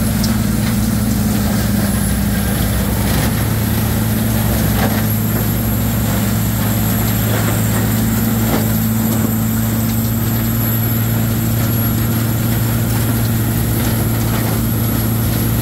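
Rotochopper MP2 horizontal grinder running steadily on its CAT C7 diesel engine, a constant low drone with an even rush of noise above it, while it grinds wood into mulch and its conveyor discharges the chips.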